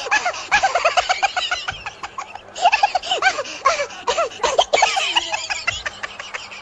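High-pitched, rapid giggling laughter in two long runs, breaking briefly about two and a half seconds in.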